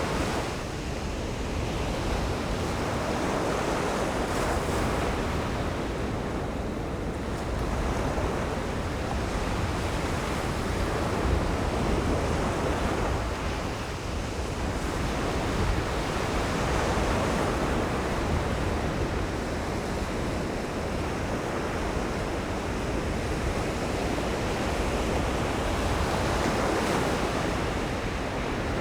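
Ocean surf breaking and washing on a beach, swelling and easing every few seconds, with low wind rumble on the microphone.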